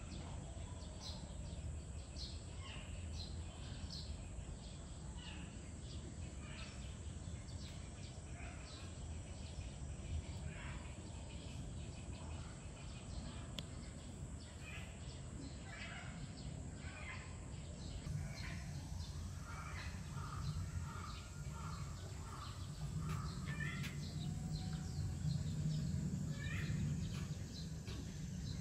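Birds chirping in short, scattered calls over a low background rumble, which swells in the last few seconds.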